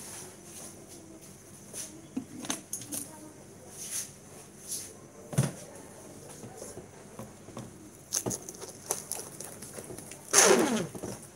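Food packaging being handled while trays of food are packed: scattered clicks, taps and plastic rustles, with a louder crinkling crackle about ten seconds in.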